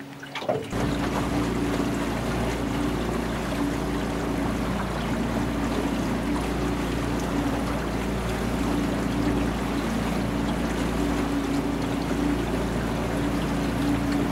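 Small motorboat's engine picking up sharply about a second in, then running steadily under way, with water rushing along the hull and wind on the microphone.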